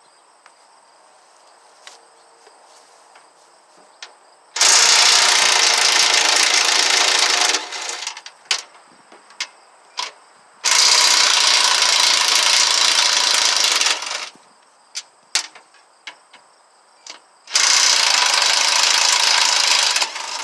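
Cheap 14.4-volt cordless impact wrench, rewired to run off a jumper pack, hammering on bolts in three bursts of about three seconds each, with short metal clicks and clinks between bursts.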